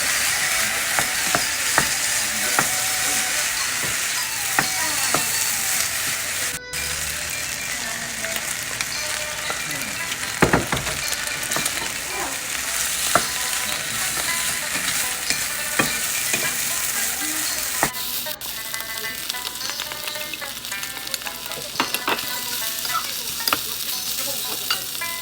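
Food sizzling in hot oil in a pan as it is stirred for shrimp fried rice, with a spatula clicking and scraping against the pan. The sizzle breaks off for a moment about seven seconds in.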